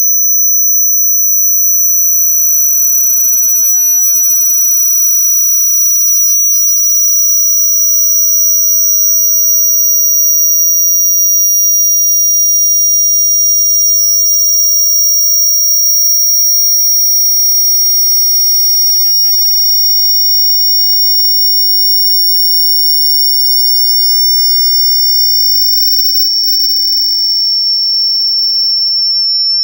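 Pure sine-wave test tone, high and steady, slowly gliding down in pitch: a frequency sweep for testing loudspeaker response. A much fainter, even higher tone sits above it.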